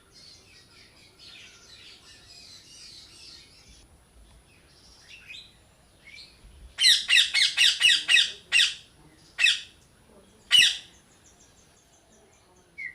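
Parrot squawking: a rapid run of about eight loud squawks about seven seconds in, then three single squawks about a second apart. Smaller birds twitter faintly in the background before it.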